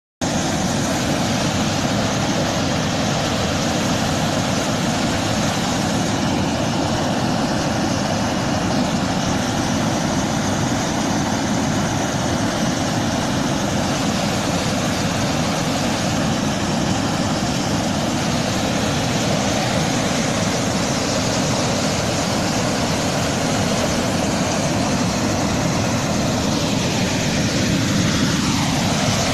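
Floodwater rushing over a concrete dam spillway, a steady roar of churning water from a reservoir spilling over in flood.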